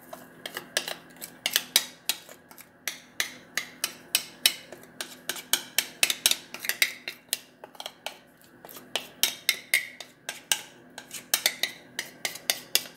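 Metal spoon clinking and scraping against a glass mixing bowl in quick, irregular strokes as cake batter is scraped out into the pan.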